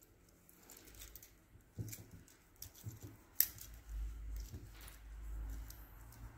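Faint scattered clicks and light clinks of a metal link watch bracelet and case being turned over in cotton-gloved hands, with a low dull handling rumble in the second half.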